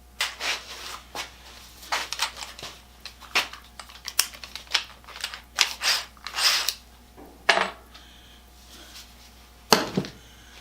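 Metal casters and their hardware being handled and set against a wooden base: irregular clinks, rattles and rustles, with one sharp knock near the end.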